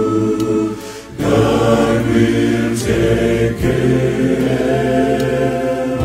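Male-voice choir singing in close harmony, holding long chords. The sound drops briefly about a second in, then a new chord comes in, with further chord changes around three and a half seconds in.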